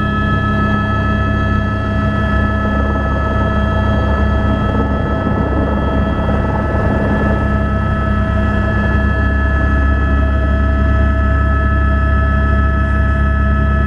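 Helicopter heard from inside the cabin in flight: rotor and turbine engine running steadily, a heavy low drone with a steady high turbine whine over it.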